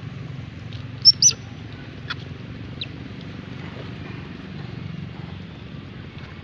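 Two sharp, high-pitched squeaks from a young macaque about a second in, then two fainter short squeaks, over a steady low background hum.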